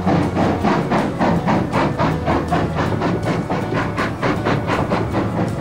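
Steam locomotive exhaust beats in an even rhythm of about three chuffs a second as the engine works a train.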